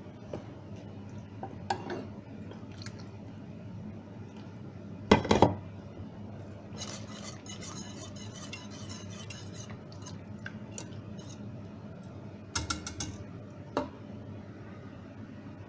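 Kitchen utensils knocking and scraping against pots and dishes: a few sharp clatters, the loudest about five seconds in, a stretch of scraping in the middle and another short cluster of knocks near the end, over a steady low hum.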